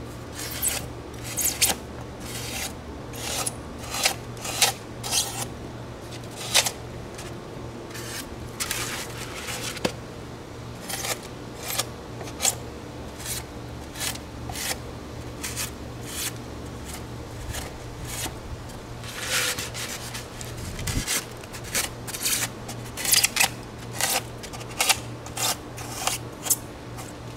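Utility razor knife cutting small chunks off a block of Styrofoam, in short, irregular, scraping strokes about one or two a second.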